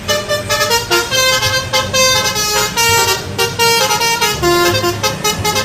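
Multi-tone 'telolet' bus horn playing a fast tune of short, changing notes.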